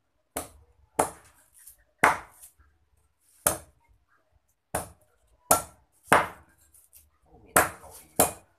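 Meat cleaver chopping raw chicken on a wooden chopping block: about nine sharp chops at uneven intervals of half a second to a second and a half.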